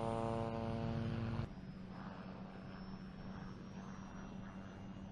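Helicopter flying close by: a loud, steady pitched drone that cuts off about a second and a half in, followed by a fainter, steady engine hum of a helicopter farther away.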